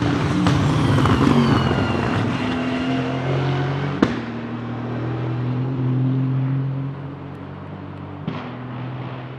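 Aston Martin Vantage GT3's Mercedes-AMG-derived 4.0-litre twin-turbocharged V8 race engine passing close at speed, its note falling in pitch, then a steady engine drone as the car goes away into the corner and fades. Two sharp cracks cut through, about four seconds in and again near the end.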